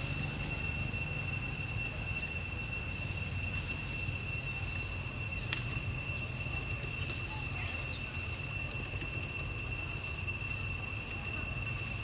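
Steady, high, even insect drone over a low rumble, with a few short high chirps about six to eight seconds in.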